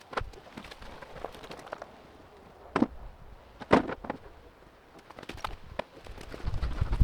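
Several separate knocks and clatters, about five or six, the loudest two near the middle, with a low wind rumble on the microphone rising near the end.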